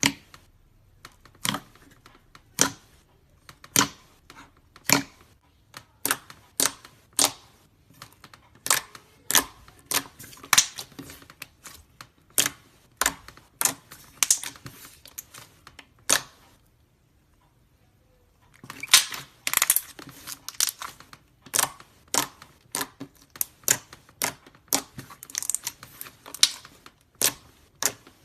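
Slime being pressed and poked by hand, giving sharp sticky clicks and pops, about two or three a second, with a pause of about two seconds partway through.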